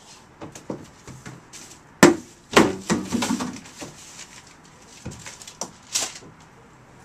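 Plastic wheeled trash bin being opened and rummaged: a sharp bang about two seconds in as the lid goes up, then a burst of clattering and rustling as hands dig inside the bin, with another knock near the end.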